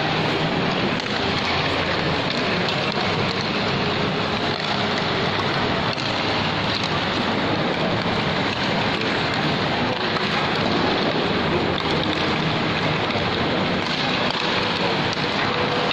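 Steady, dense background hubbub of a large indoor mall hall, with no single sound standing out.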